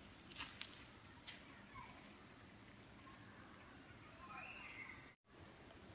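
Near silence: a faint steady insect trill outdoors, with a few faint clicks of pliers working welded wire mesh in the first second or so.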